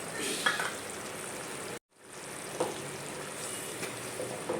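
Chicken kurma sizzling as it fries in a pan, a steady hiss with a couple of sharp clicks. The sound cuts out completely for a moment about two seconds in.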